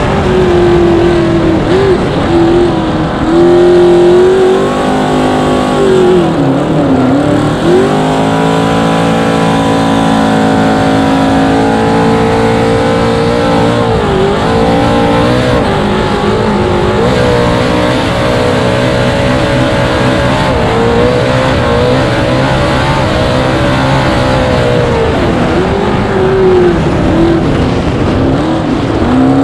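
Cracker box race boat's small-block Chevy V8 running hard through open exhaust headers at racing speed, its pitch dipping briefly several times and climbing back, over a constant rushing noise.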